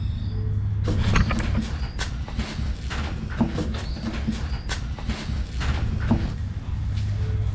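A hand squeezing and working wet, oiled naan dough in a wooden bowl: irregular squelches and soft knocks against the bowl from about a second in until about six seconds.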